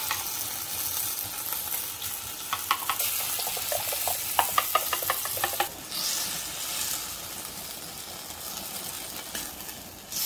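Beef, cabbage, carrot and potato sizzling as they are stir-fried in a steel wok. A metal spatula scrapes and clinks against the wok in a run of quick strokes from about two and a half to five and a half seconds in, after which the sizzle goes on a little quieter.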